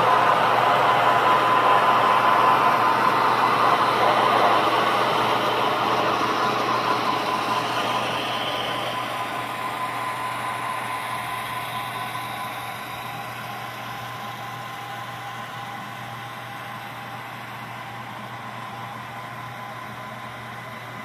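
Sound-equipped HO-scale model diesel locomotives, Santa Fe EMD road switchers, playing a diesel engine sound through their small on-board speakers. The engine sound is loudest at the start and fades steadily over the first fifteen seconds or so as the locomotives move away, then stays low.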